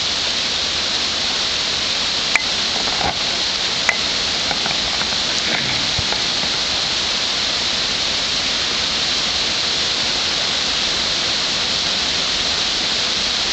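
Heavy rain falling steadily in a thunderstorm, a dense even hiss of rain on the street and porch, with two sharp drip taps a second and a half apart in the first few seconds.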